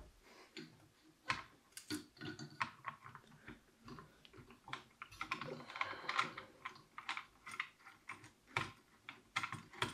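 A screwdriver working the mounting screws of a Zalman CPU cooler off a motherboard: many irregular small metal clicks and taps, with a stretch of scraping about halfway through.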